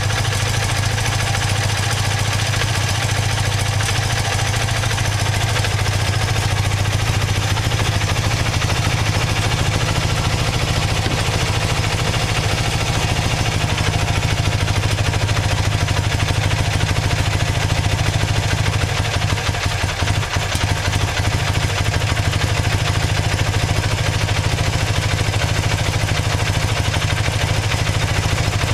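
BMW R100GS air-cooled boxer twin running steadily while its carburettors are tuned and balanced against a vacuum gauge, with a brief dip in level about two-thirds of the way through.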